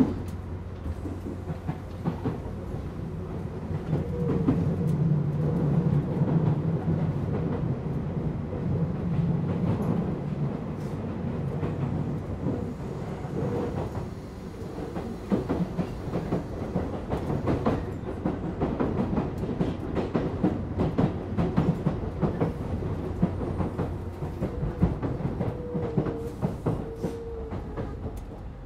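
Tobu 8000 series electric train running, heard inside motor car MoHa 8270: a steady rumble of wheels and traction motors with scattered rattles. The rumble is at its loudest from about four seconds in until about ten seconds in, and brief higher tones come near the end.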